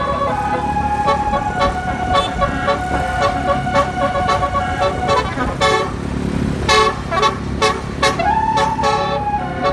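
Bus telolet horn, a set of tuned air horns, playing a tune in held notes that step up and down in pitch, partly in a pulsing rhythm, over the low rumble of the running engine.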